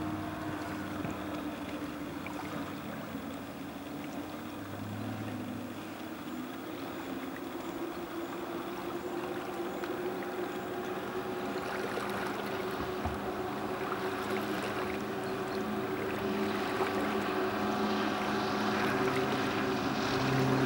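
115 hp Evinrude outboard motor on an Anytec 530 SPD boat running at speed in the distance, a steady drone. It grows louder through the second half, together with a rising rush of hiss, as the boat comes closer.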